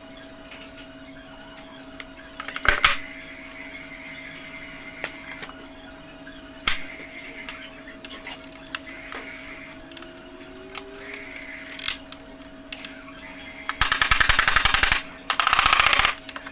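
Workshop sounds: a steady hum with a few sharp knocks and clicks, then about three-quarters of the way through, a loud, rapid, machine-gun-like rattle of a power tool starts in two bursts.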